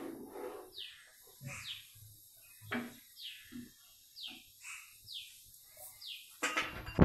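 A bird chirping again and again, each chirp a quick downward sweep, about two a second. Soft low knocks come between the chirps, and there is a louder noisy clatter near the end.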